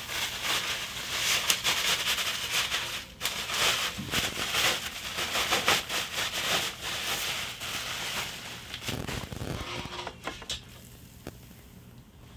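Packaging rustling and crinkling in dense crackles as a car exhaust header is unpacked from its shipping box, dying down over the last couple of seconds.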